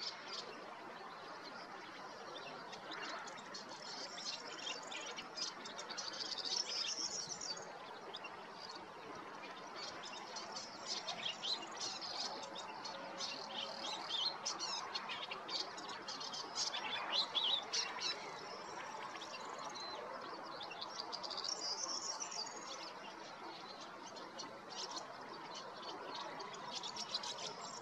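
European goldfinch singing its spring song: long phrases of rapid, high twittering that come and go several times, with short pauses between.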